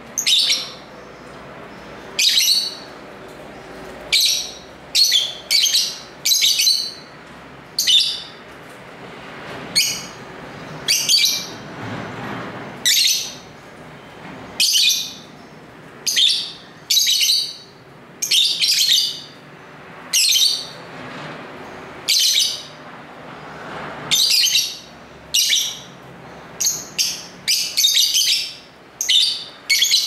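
Lovebirds chirping: short, sharp, high-pitched calls, singly or in quick clusters, about once a second.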